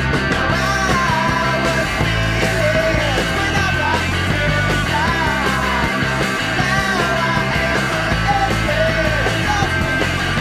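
Rock song with a singing, shouting vocal over a stepping bass line and a steady band.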